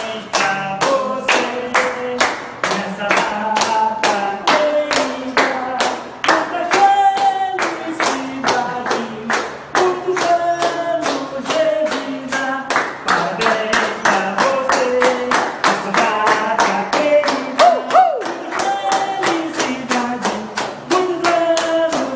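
People singing a birthday song together while clapping along in a steady rhythm, about three claps a second.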